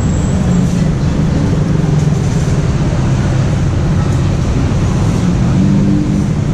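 Street traffic running close by: a steady, loud rumble of motorbike and car engines with no breaks.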